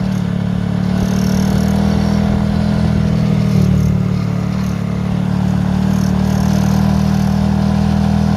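Honda Grom's single-cylinder engine running steadily, carrying the weird noise the owner hears around 5,000 rpm, which he guesses is something shaking; his footpegs are known to rattle.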